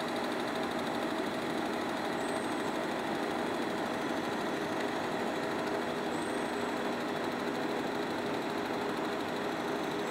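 Film projector running, the film advancing through the mechanism with a rapid, even clatter. A faint high chirp comes about every four seconds.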